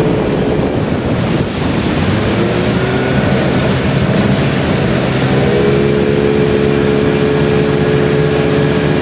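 Tow boat's engine running steadily under way, over the rush of its churning wake and wind on the microphone; the engine's tone stands out more clearly about halfway through.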